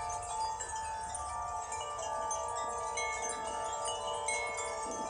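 Many garden wind chimes ringing together in gusty wind, two sets of chimes heard at once: overlapping sustained tones at many pitches, with fresh strikes throughout.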